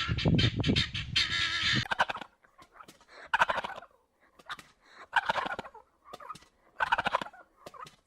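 Farmyard fowl calling: a fast, rattling run of calls for about two seconds, then single calls about every second and a half.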